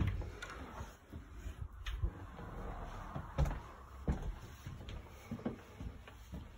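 A door's lever handle clicking as the door is pulled open, then footsteps climbing carpeted stairs: a series of soft thumps.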